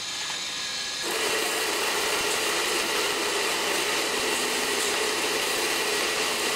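Pressure washer spraying a water jet over a car's engine bay: the spray starts about a second in and then runs as a steady loud hiss.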